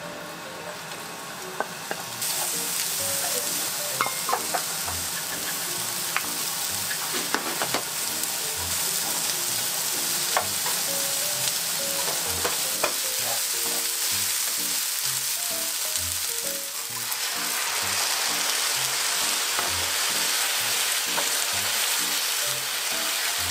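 Onion, shimeji mushrooms and pork sizzling in a frying pan, stirred with a wooden spatula that now and then knocks and scrapes against the pan. The sizzle starts about two seconds in, drops briefly past the middle and comes back stronger.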